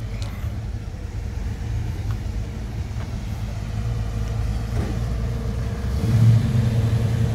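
Low, steady rumble of a car engine, growing a little louder near the end.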